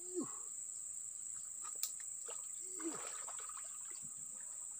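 Steady, high-pitched drone of insects such as crickets or cicadas. Two short low sounds that drop in pitch break in, one at the start and one about three seconds in, and there is a sharp click a little before two seconds.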